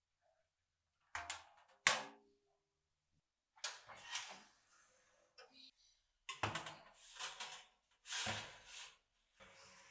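Oven door being opened and a metal tray carrying a cast meat grinder slid onto the oven's wire rack: a few short knocks and scrapes of metal on metal, the sharpest about two seconds in.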